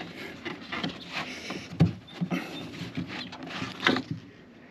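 Irregular clunks and rattles of a window regulator track being worked into place against the glass inside the door of a 2009 Chevrolet Silverado. Two sharper knocks come about two seconds apart.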